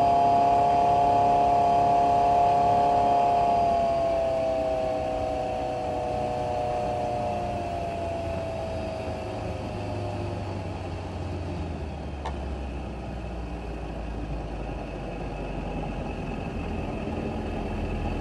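Boat's outboard motor running at full throttle with a steady high whine that, about four seconds in, starts sliding down in pitch and fades over several seconds as the motor slows. A low rumble remains.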